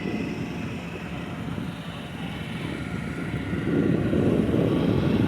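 Low, steady mechanical rumble of hot-air balloon inflation equipment, growing louder about three and a half seconds in.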